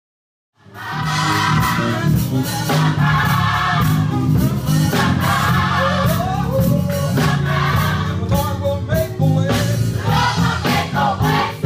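Live gospel worship music: a worship team and congregation singing with a band that includes bass guitar, with sharp beats running through it. It starts suddenly about half a second in, out of dead silence.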